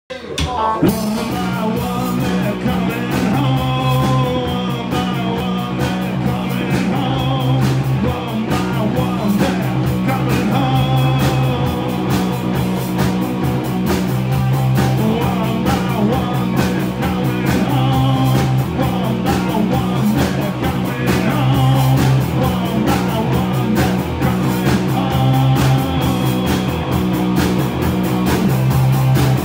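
Live rock band playing: a drum kit keeps a steady beat under a driving electric bass and electric guitar, with a man singing lead vocals over them.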